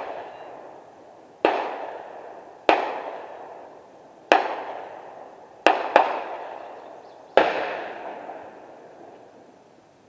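Gunshots at an outdoor range, six sharp reports in about six seconds with two almost back to back, each followed by a long echoing tail.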